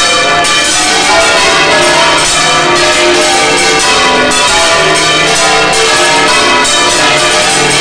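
Several large church bells swung full circle by hand (Spanish-style volteo), ringing loudly and continuously in a dense, overlapping peal, heard up close inside the belfry.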